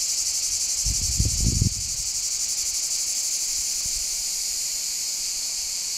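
Dense, steady chorus of insects shrilling, with a brief low rumble about a second in.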